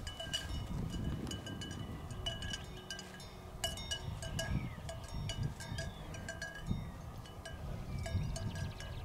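Cowbells on grazing cattle clanking and ringing irregularly, with a gusty low rumble of wind on the microphone.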